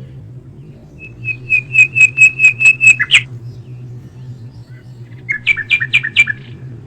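A songbird singing two phrases: first a run of about nine quick repeated high notes ending in a short flourish, then after a pause of two seconds a shorter run of quick doubled notes.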